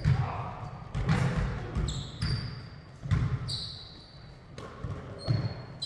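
Basketball bouncing on a hardwood gym floor, four or five uneven bounces that echo in the hall, mixed with short high squeaks of sneakers on the court.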